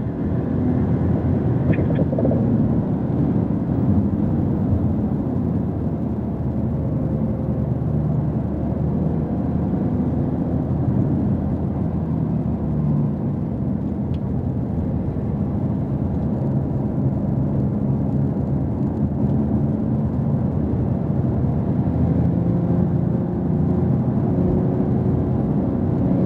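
Porsche 911 Turbo S's twin-turbo flat-six and tyre noise heard from inside the cabin at track speed: a steady rumble whose pitch rises and falls as the car accelerates and eases off through the corners.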